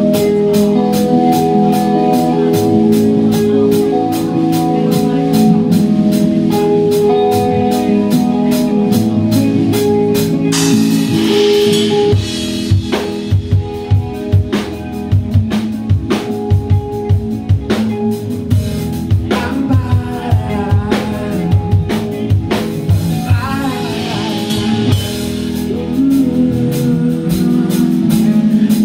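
Live rock band playing an instrumental passage: held chords over a drum kit, with fast, even cymbal ticks at first. About ten seconds in, a cymbal swell, after which strong kick-drum hits drive the beat.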